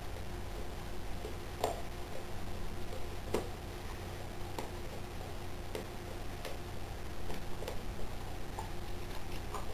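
Boxer dog chewing a raw fish: irregular clicks and crunches of teeth on flesh and bone, roughly one a second, over a low steady hum.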